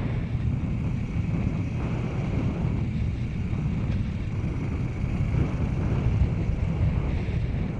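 KTM 500 dirt bike's single-cylinder four-stroke engine running steadily while riding, with wind noise on the microphone.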